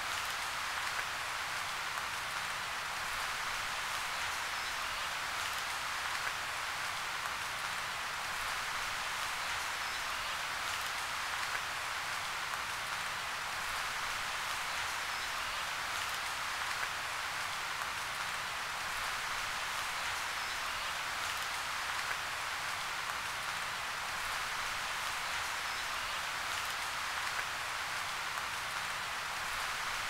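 Steady crackling hiss, even in level throughout, with fine faint ticks scattered through it and no distinct calls or splashes standing out.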